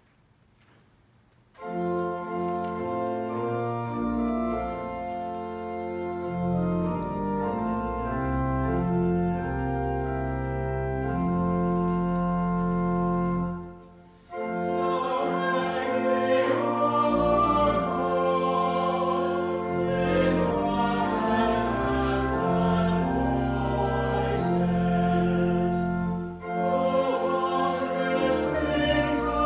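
Church organ music, a postlude of sustained chords over a deep pedal bass, starting about a second and a half in. It breaks off briefly about halfway through and comes back fuller and louder.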